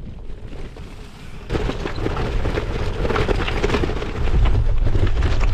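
Tyres of an NS Bikes RAG+ 2 gravel bike crunching and rattling over a loose, rocky track, heard from a camera mounted on the bike, with heavy wind buffeting the microphone. The crackle of stones sets in about a second and a half in and grows louder towards the end.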